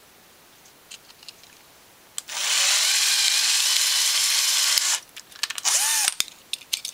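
Cordless screwdriver with a 3 mm drill bit drilling out the post that holds a die-cast toy car together. A few small clicks, then the drill runs steadily for nearly three seconds, stops, and gives a second short burst near the end.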